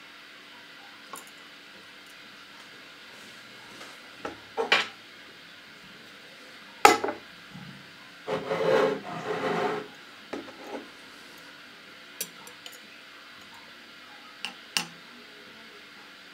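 Hard plastic fishing lures and their metal treble hooks clinking and knocking against a glass jar of water as they are lifted out and lowered in. The loudest is a sharp knock about seven seconds in, followed by a second or two of rustling handling noise, then a few light ticks near the end.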